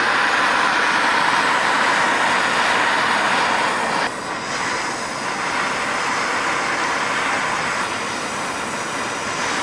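Bernzomatic TS8000 torch fitted with a Searzall head, burning with a loud, steady rushing hiss of gas flame through the glowing mesh screens. The sound dips slightly about four seconds in.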